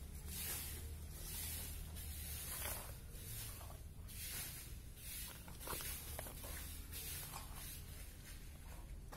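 Goat hide being pulled and peeled off the carcass by hand: a short rasping, tearing hiss with each pull, repeating roughly once a second over a steady low rumble.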